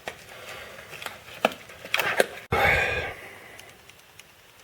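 Scattered sharp clicks and knocks of tools and parts being handled, then a sudden louder scraping rustle about two and a half seconds in that fades away.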